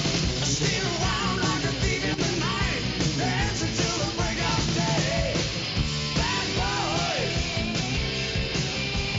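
Rock music with a steady, driving beat and a sung vocal line.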